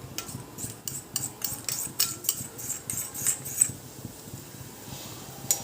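Metal spoon stirring soup in a kadhai, clinking and scraping against the pan in a quick irregular run of about four ticks a second for three and a half seconds, then one more knock near the end.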